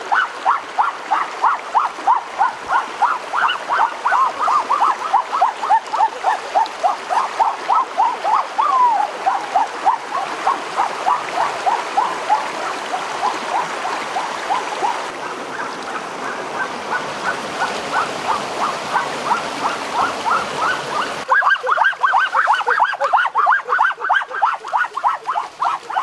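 A rapid repeating animal call, short strokes about four a second, carries on throughout over the sound of a stream running over rocks. The water grows louder in the middle and the calls stand out again near the end.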